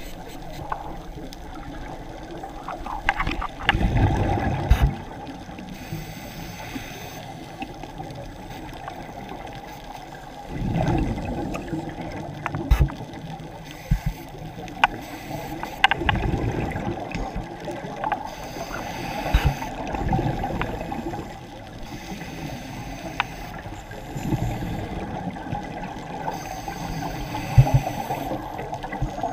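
Scuba regulator breathing underwater: a gushing, gurgling burst of exhaled bubbles about every five seconds, with a quieter hiss of air drawn in between.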